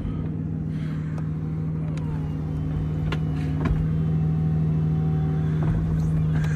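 Power-operated soft top of an Aston Martin Vanquish Volante folding down, with a steady mechanical hum and a few sharp clicks from the roof mechanism, over the naturally aspirated 6.0-litre V12 idling.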